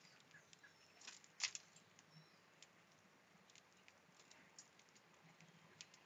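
Faint, scattered clicks and taps of a northern cardinal and house sparrows pecking and cracking seed on a hopper feeder's tray. The sharpest click comes about a second and a half in, with a few faint short bird chirps.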